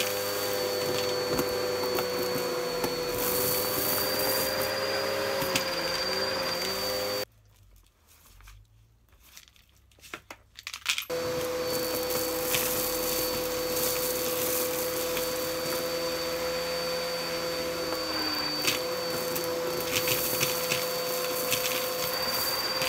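Bissell upright vacuum running with suction through its hose and crevice tool, steady motor hum with scattered ticks and rattles as crumbs and debris are sucked up the hose. About seven seconds in the sound drops to near silence for about four seconds, then the vacuum is running again.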